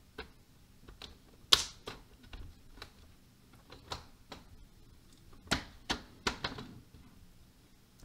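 Irregular sharp plastic clicks and taps from an Acer TravelMate P214 laptop's screen bezel being pressed down by hand. The loudest click comes about one and a half seconds in, and another cluster of clicks comes a few seconds later.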